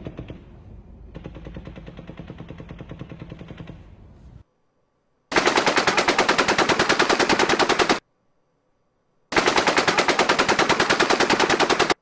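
Fainter, distant rapid automatic gunfire, about four seconds of it, then two loud bursts of full-automatic fire from an M240 belt-fed machine gun (7.62 mm), each about three seconds of rapid, evenly spaced shots with a second's gap between them.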